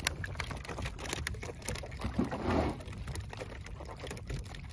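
Dense patter and tiny splashes of a school of small baitfish flicking at the water surface beside the boat, heard as many scattered clicks and ticks, with a brief louder swish of water about two seconds in.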